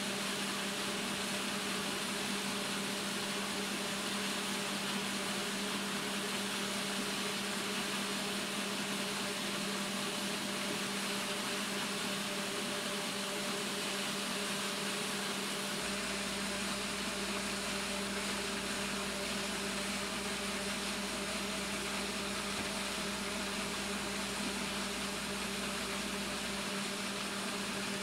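Excavator's diesel engine idling steadily, a constant low hum over an even mechanical noise.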